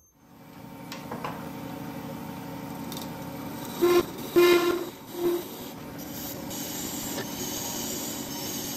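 Wood lathe starting up and running with a solid brass workpiece in the chuck, then a hand-held turning tool cutting the spinning brass. About four to five seconds in the tool squeals on the metal three times, loudly and briefly, before settling into a steady scraping cut.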